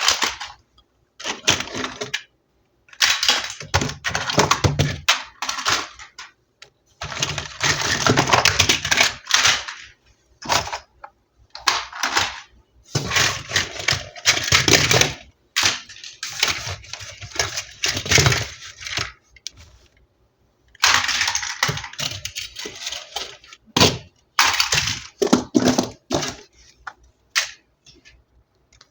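Plastic toy packaging and toy pieces handled close up, in bursts of crackling and rapid clicking that last a few seconds each, with short quiet pauses between.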